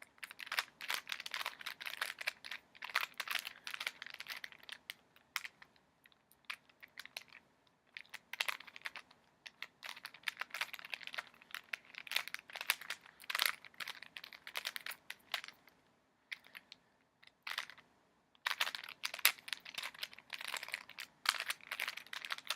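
A plastic Rubik's Cube being turned by hand: quick runs of clicking as the layers twist, broken by a couple of short pauses, as the cube's second layer is worked out.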